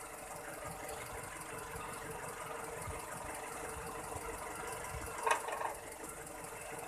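Carburetted Toyota Kijang K-series four-cylinder engine idling steadily with a fine mechanical ticking, running smoothly with its carburettor's power jet freshly reset. A brief voice-like sound is heard about five seconds in.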